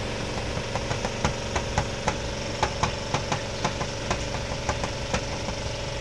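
Spin-dryer tub of a 7 kg twin-tub washing machine spinning clothes to wring the water out of them: a steady motor hum with irregular light clicks, a few a second.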